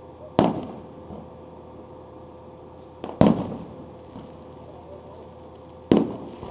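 Aerial firework shells bursting: three loud booms about two and a half seconds apart, each trailing off in an echo.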